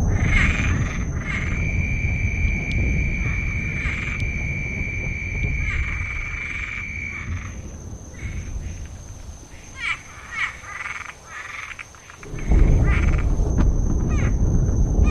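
Frogs croaking in repeated short calls over a steady high insect trill and a low rumble of rain and distant thunder. The rumble fades through the middle and comes back abruptly about twelve seconds in.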